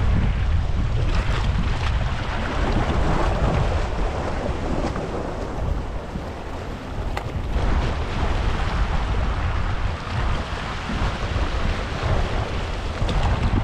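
Wind buffeting the microphone, with a heavy low rumble, over harbour waves washing and splashing against a rock shelf; the wash swells and eases as each wave comes in.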